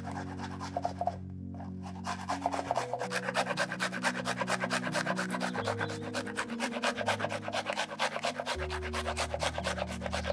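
Garlic clove being grated on a fine metal grater: rapid, even rasping strokes, with a brief pause about a second in. Soft sustained background music underneath.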